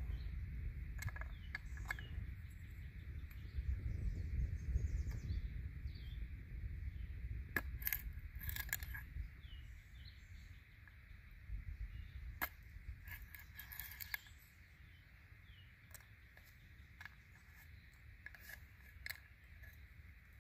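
Scattered small snaps and clicks of a fire starter stick being broken by hand into toothpick-sized slivers, over a low steady rumble.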